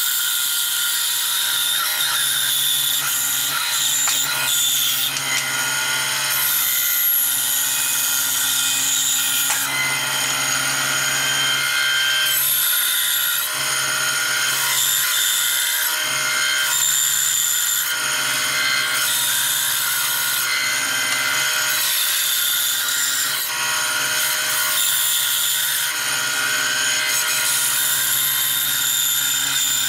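Band saw running and cutting a curved outline through a thick oak board: a steady motor hum under the blade's high cutting noise, which swells and eases every few seconds as the wood is fed and turned.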